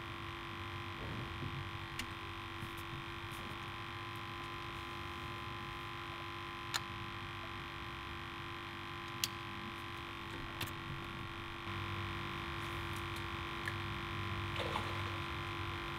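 Bow-mounted electric trolling motor humming steadily at one pitch, with a few faint clicks; a low pulsing rumble joins about three quarters of the way through.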